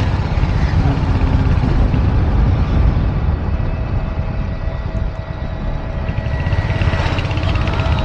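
Wind buffeting the microphone over a motorcycle's running engine while riding at speed. A faint steady whine joins in about halfway through.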